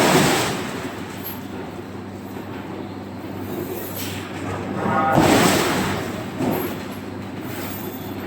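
Forging-shop machinery running with a steady low hum, broken by two louder clanging, hissing bursts, one at the start and one about five seconds later.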